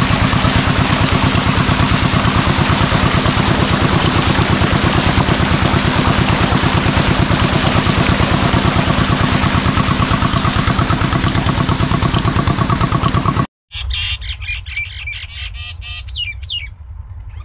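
An engine running steadily with a fast, even pulse, loud until it cuts off abruptly about thirteen seconds in. After a brief silence, birds chirp over a low hum.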